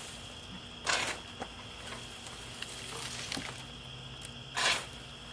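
Wood chips being scooped from a pile and tossed into a dump cart: two rustling, crackling scoops, one about a second in and one near the end.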